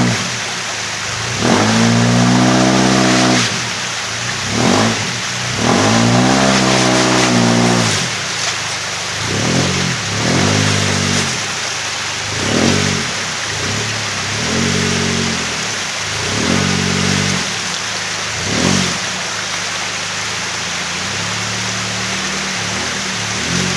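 Engine of a lifted Toyota Hilux Surf 185 rock crawling over boulders, revving in short bursts of throttle that rise and fall about eight or nine times.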